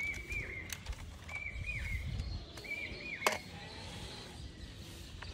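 A bird calling three times, a short whistled phrase of a flat note ending in little hooked notes, repeated about every second and a half. Sharp plastic clicks of toys being handled come twice, the louder about three seconds in.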